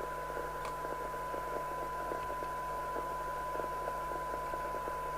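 A CB radio receiver's loudspeaker reproducing a steady test tone from a signal generator, with hiss and crackle underneath and a low mains hum. The test signal is weak.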